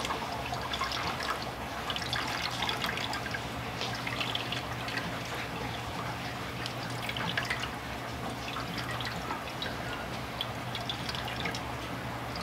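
Cassava juice dripping and trickling from a cloth bundle of grated cassava into a metal pot as the cloth is squeezed, with many small irregular drips throughout.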